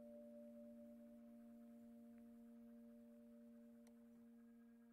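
Faint ambient meditation music: a soft chord of a few steady held tones, slowly fading away.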